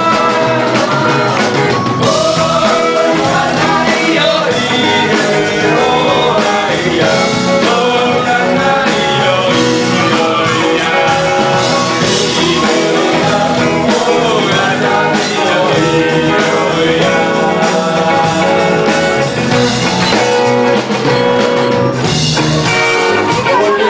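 Upbeat band music with singing, loud and steady throughout.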